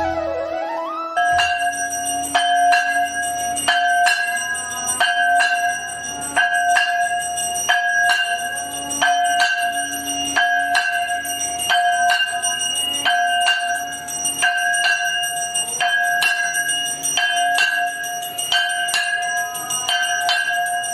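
A temple bell rung over and over, about two strokes a second, each stroke ringing on into the next; the ringing starts about a second in.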